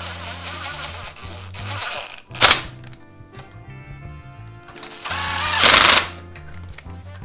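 Background music with a steady bass line. Over it, a ratchet wrench clicks in two quick runs, a short one about two and a half seconds in and a longer, louder one around five to six seconds in, as the ignition coil's mounting bolts are tightened.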